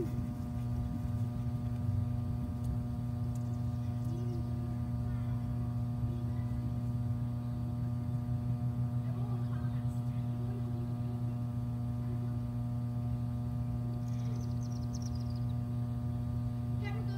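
Steady low electrical hum with a stack of evenly spaced overtones, unchanging throughout, with faint scattered sounds at a few moments.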